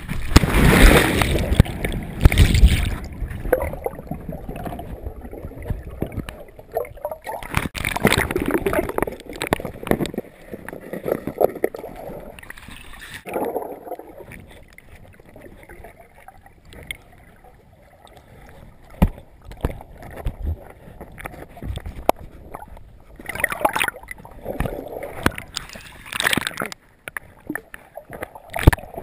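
A person jumping into deep spring water with a GoPro: a loud splash at the start, then muffled underwater bubbling and gurgling, with more loud bursts of water noise near the end.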